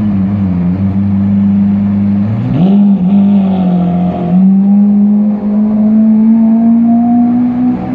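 Lamborghini Aventador's V12 engine pulling away at low revs: its pitch jumps up about two and a half seconds in, dips briefly just after four seconds, then climbs slowly as the car accelerates off.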